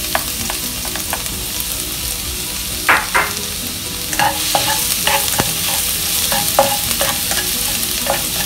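Minced garlic sizzling steadily in hot oil in a non-stick wok. From about three seconds in, a spatula scrapes and taps against the pan as the garlic is stirred.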